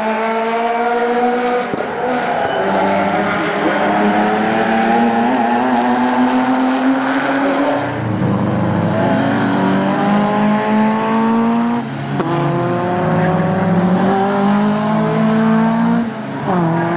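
Racing car engines accelerating hard at full throttle, the engine note climbing steadily through each gear and dropping back sharply at upshifts about eight and twelve seconds in and again near the end.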